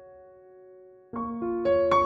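Background piano music: held notes die away, then a new phrase of notes begins about a second in.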